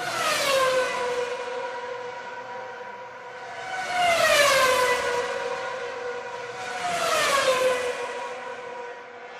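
Race cars passing at high speed, three pass-bys about three seconds apart, each engine note swelling and then dropping sharply in pitch as the car goes by.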